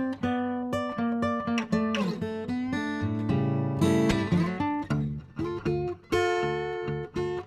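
Background music played on acoustic guitar, plucked and strummed, with some notes sliding in pitch.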